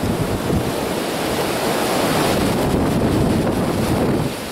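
A strong wind gust buffeting the microphone, a loud rushing noise that eases off near the end.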